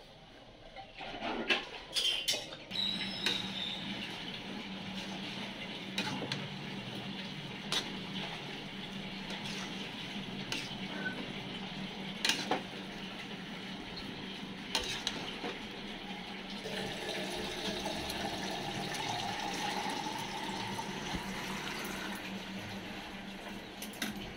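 Steel spatula clinking and scraping against an iron kadai as cooked upma is stirred, over a steady hiss and low hum. A few sharp metal clanks about two seconds in, as the steel lid comes off the pan.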